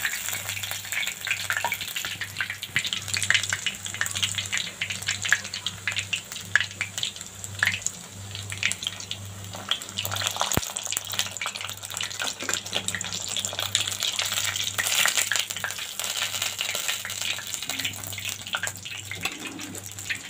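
Chicken lollipops deep-frying in hot oil, at the end of their second fry: a continuous crackling sizzle of many fine pops, with one sharp knock about halfway through.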